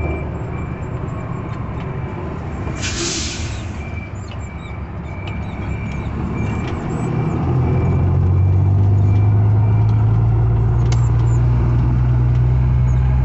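Heavy truck's diesel engine heard from inside the cab while driving, with a short burst of air-brake hiss about three seconds in. From about seven seconds the engine drone grows louder and steadier as the truck picks up speed.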